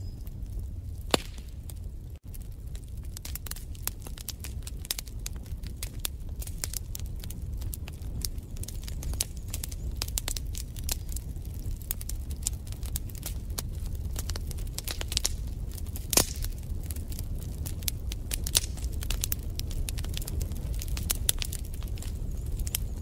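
Wood fire crackling in a fireplace: a steady run of small irregular pops and snaps over a low rumble. Two sharper pops stand out, one about a second in and a louder one about two-thirds of the way through.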